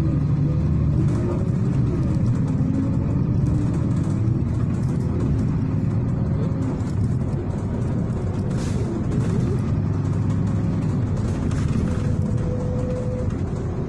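City bus on the move, heard from inside the cabin: a steady low rumble of engine and road noise, with the engine's pitch shifting slightly.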